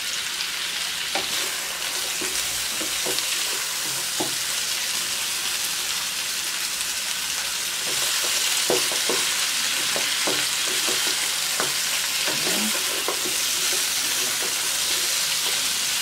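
Parboiled native chicken pieces sizzling in a wok while a wooden spatula stirs them, with scattered short knocks and scrapes of the spatula against the pan. The sizzle gets a little louder about eight seconds in.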